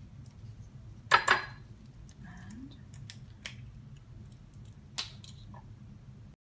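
Eggs being cracked and separated by hand over a small ceramic ramekin: a few sharp clicks and taps of eggshell against the dish, the loudest about a second in and another near five seconds.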